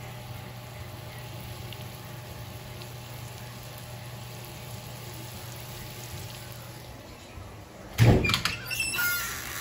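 Butter melting and faintly sizzling in a wok over a steady low hum. About eight seconds in, a sudden loud knock and a second of clattering with a few short squeaks.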